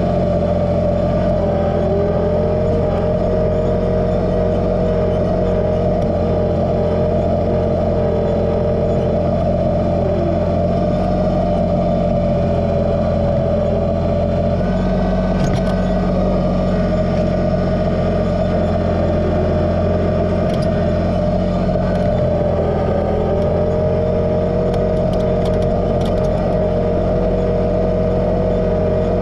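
Kubota BX2380 sub-compact tractor's three-cylinder diesel engine running steadily at working speed, with a second, lower whine that comes in for several seconds twice, and a few faint clicks.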